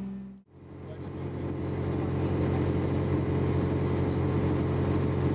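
A boat's engine fades out, and about half a second in a steady low engine drone fades back in and runs on evenly.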